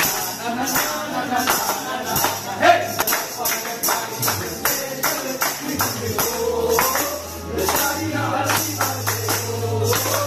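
Group of restaurant staff singing a birthday song together, clapping and shaking a tambourine on a steady beat.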